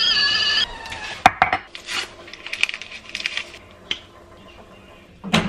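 Stovetop whistling kettle on a gas burner whistling at the boil for under a second, then cut off, a sign the water is ready. Then clinks and knocks of a ceramic mug on a stone counter and the crinkling of a tea-bag wrapper being opened.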